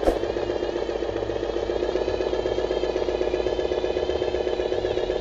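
Remote-control model truck's diesel-style engine sound running steadily with a fast, even chugging pulse. A short sharp click comes right at the start.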